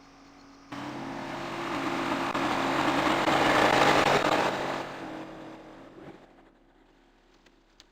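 Tractor-driven bush hog (rotary cutter) mowing through tall weeds: a steady engine note under a broad rushing noise. It starts abruptly, swells to its loudest about four seconds in and fades away by about six seconds.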